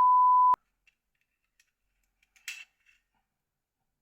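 A censor bleep: a steady pure beep lasting about half a second, laid over a swear word that begins "mother". After it come faint clicks and, about two and a half seconds in, a brief louder click of small phone parts being handled.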